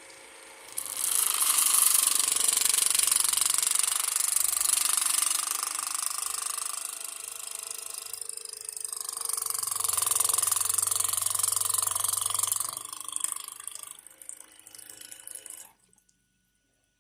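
Water running and splashing into a sink in two long spells with a brief lull between them. A low hum joins during the second spell, and the sound cuts off abruptly near the end.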